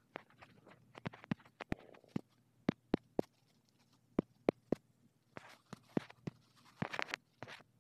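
Irregular light taps and clicks of fingertips on a phone touchscreen, with a few longer rustling scrapes of handling near the end.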